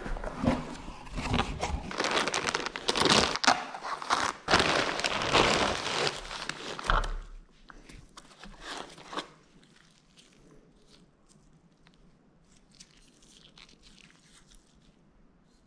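Clear plastic packaging crinkling and rustling as a box of connecting rods is unpacked, dense and loud for about seven seconds. After that only faint scattered rustles and light clicks as the rods are handled in their foam tray.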